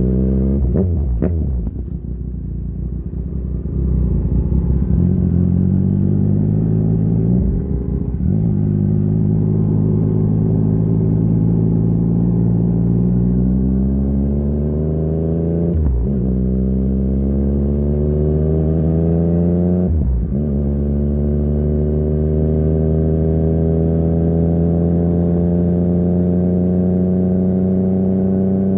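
2020 Yamaha MT-09's inline three-cylinder engine through a Barker full exhaust, heard onboard accelerating up through the gears. It eases off briefly about two seconds in. Then the pitch climbs in each gear, broken by quick upshifts about 8, 16 and 20 seconds in, and ends in a long steady pull.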